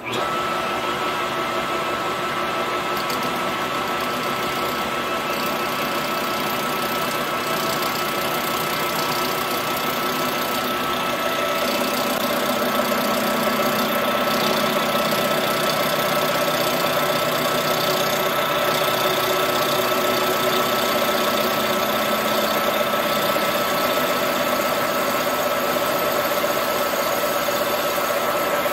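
Metal lathe running with a chainsaw cylinder spinning in its chuck while the tool cuts the cylinder's base flange, the cut chattering and vibrating. A steady high whine runs through it, and about twelve seconds in the cut grows fuller and a little louder.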